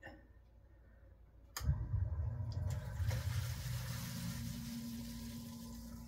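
A primary AC sump pump switches on suddenly about one and a half seconds in, running on marine-battery power through a 1500-watt inverter-charger during a simulated power outage. Its motor hums steadily while water rushes out through the pump.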